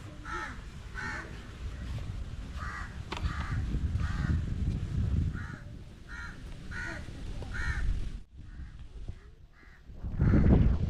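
A crow cawing over and over, short harsh calls coming in runs of about two a second, with a low rumble underneath.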